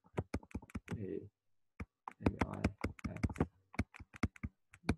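Stylus tapping and clicking on a pen tablet while handwriting, giving quick, irregular clicks several times a second.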